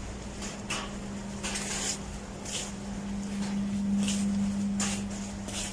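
Footsteps of someone walking, heard as short scuffs about every second, over a steady low hum that swells a little partway through.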